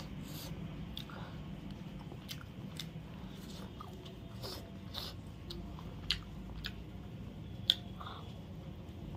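Close-miked eating of chicken on the bone: chewing and biting with scattered small wet mouth clicks, and one sharper click about three-quarters of the way through, over a steady low hum.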